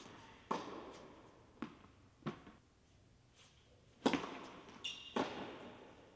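Tennis ball bouncing a few times on an indoor hard court, then a racket striking a serve about four seconds in, a brief shoe squeak, and another ball strike about a second later. Each hit echoes in the large hall.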